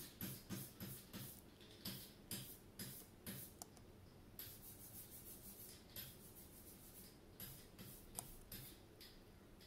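Faint, sharp clicks against near silence, about two a second for the first four seconds, then fewer and irregular.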